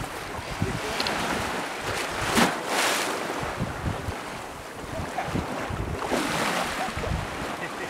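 Wind buffeting the microphone over a steady rush of sea water, with uneven gusts throughout.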